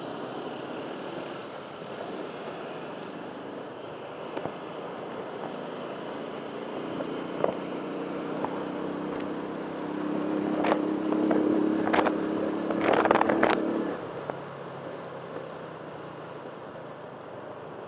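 Motor vehicle engine noise over steady road noise: an engine hum of steady pitch builds from about seven seconds in, grows louder, then stops abruptly near fourteen seconds, with several sharp clicks toward its end.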